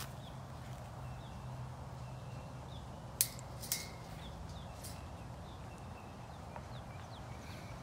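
Outdoor ambience with faint, repeated short bird chirps over a steady low hum. Two sharp clicks sound about three seconds in, half a second apart.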